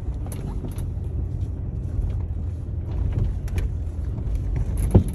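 A 2001 Jeep Cherokee driving slowly in four-wheel-drive low over loose gravel: a steady low engine and drivetrain rumble with scattered knocks and rattles, and a sharper thump near the end.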